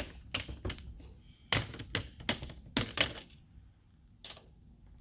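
Plastic screen bezel of an HP Stream laptop being pressed onto the display frame, its clips snapping into place in a string of sharp clicks, most of them coming close together in the middle.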